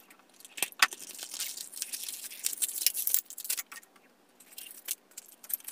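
Plastic and cardboard toy packaging being handled, crinkling and clicking. A run of rustles and clicks fills the first few seconds, then after a brief gap come a few scattered clicks near the end.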